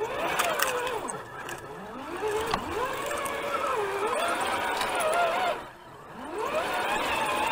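Electric motor and gear whine of an RC scale crawler driven in three throttle bursts. The pitch rises as it speeds up and falls as it slows, with dips about a second in and near the end.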